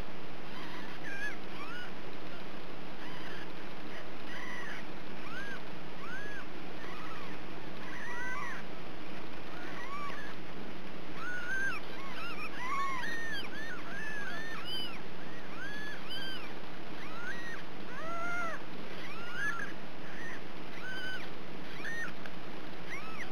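Newborn Ragdoll kittens mewing as they nurse: many short, thin, high squeaks that rise and fall, several a second and often overlapping.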